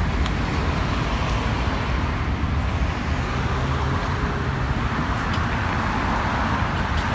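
Road traffic: cars and SUVs driving past on a multi-lane street, a steady mix of tyre noise and engines, with a nearer car swelling louder as it passes around the middle.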